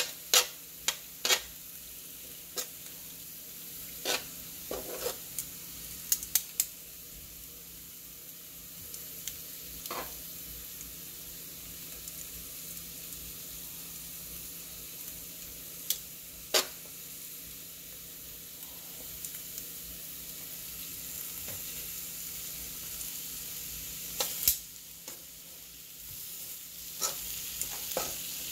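Sliced sausages and onion rings sizzling in oil on a griddle, a steady hiss. Metal tongs click sharply against the griddle plate as the food is turned, several times in the first seven seconds and a few more times later.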